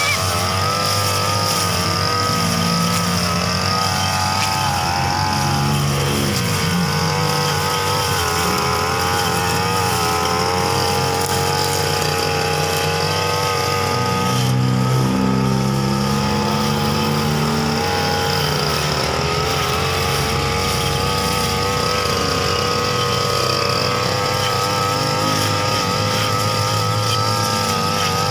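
Petrol brush cutter (grass-cutting machine) running steadily while cutting thick, overgrown grass. Its engine pitch wavers and dips for a moment every so often as it takes load.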